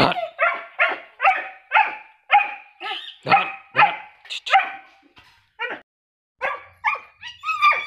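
Five-month-old Doberman puppy barking over and over, about two barks a second, with a brief pause about six seconds in. Near the end the barks turn into higher, whining yelps.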